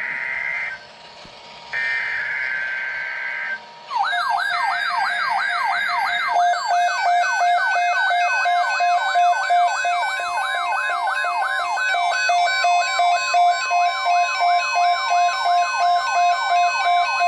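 Emergency Alert System header: short bursts of screechy two-tone digital data, one ending and two more about a second apart. About four seconds in, an alert tone starts: a siren-like wail sweeping up and down about four times a second, over a steady tone and repeating beeps.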